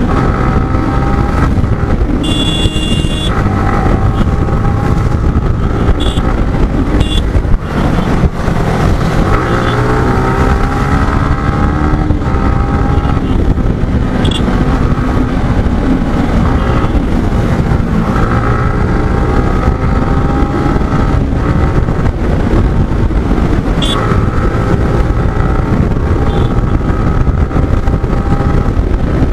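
Motorcycle engine running on the move, its pitch rising and falling as the rider works the throttle and changes gear, under heavy wind rush on the microphone. A short high-pitched tone comes about two seconds in.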